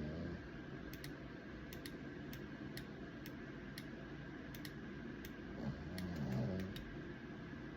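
Pug snoring in its sleep: the tail of one snore at the start, and one long snore about six seconds in. Throughout is a steady light ticking.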